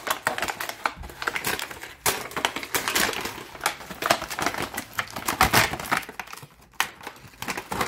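Stiff clear plastic wiper-blade packaging being twisted and pulled open by hand, crackling and crinkling in a dense, irregular run of snaps, with a short lull about six seconds in.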